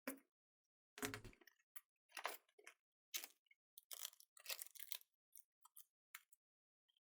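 Faint, irregular crackling and fizzing from a burning snake-egg firework (a 'pharaoh's serpent' tablet), with scattered small pops coming in uneven bursts.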